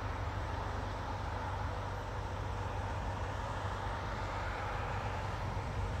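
Steady low rumble with an even hiss above it: background road traffic noise.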